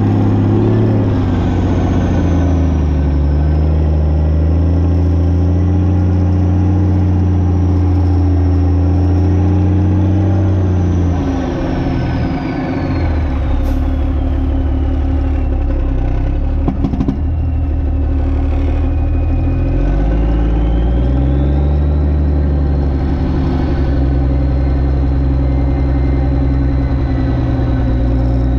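A semi-truck's diesel engine runs at low speed under light load, with a high whine that follows the engine. The engine note drops about eleven seconds in and climbs again near twenty seconds. A few sharp clicks come in the middle.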